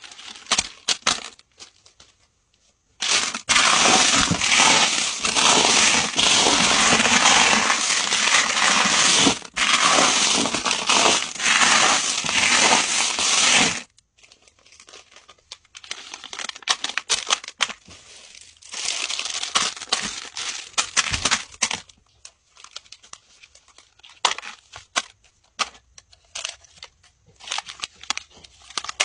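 Small tumbled crystal stones poured from a bag into a pile, making a dense rattling clatter for about ten seconds. A shorter pour follows, then scattered clicks of stones and crinkling plastic pouches.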